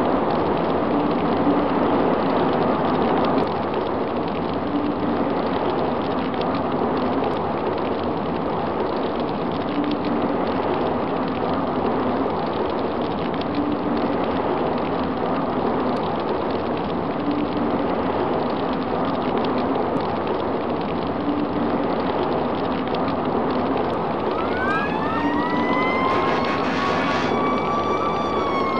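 Steady, noisy roar of a large gas-field fire, with a faint low tone that comes back every three to four seconds. About 25 seconds in, a siren starts, its pitch rising and then holding in a wail.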